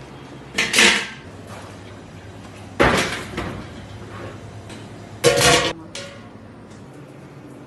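Large stainless-steel stockpot and wire cooking basket clanking: three loud metal knocks about two seconds apart, the last as the big steel lid is set on the pot, each ringing briefly. A steady low hum runs underneath.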